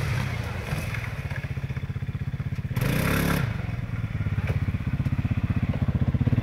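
Quad (ATV) engines idling close by with a steady, fast pulse, and another quad revving briefly about three seconds in as it climbs up.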